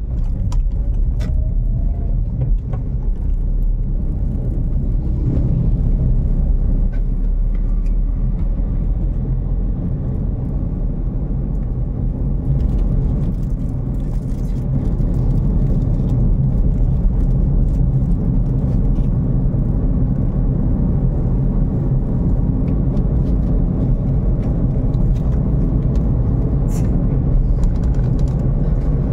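Steady low road and engine rumble of a moving car, heard from inside the cabin while driving.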